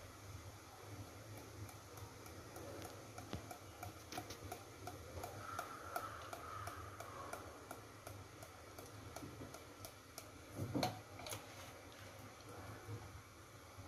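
Faint, evenly spaced ticking, a few ticks a second, with one louder knock about eleven seconds in.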